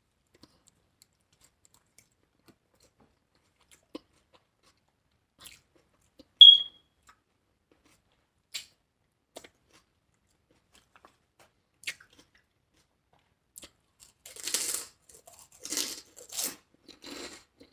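Scattered small clicks and one brief high-pitched squeak, then in the last few seconds crunchy bites and chewing of a lettuce-wrapped taco close to the microphone.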